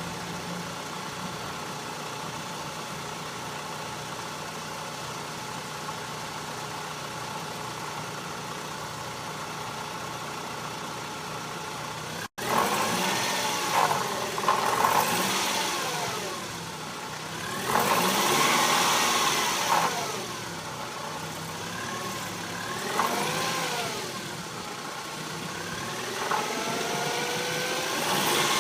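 BMW E46 318i's four-cylinder petrol engine idling steadily with a rattle, then, after a brief cut about twelve seconds in, revved up and down several times.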